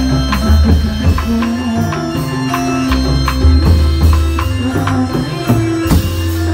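Loud Indramayu reog dance music: dense drum and percussion strokes over long held bass notes and a pitched melody.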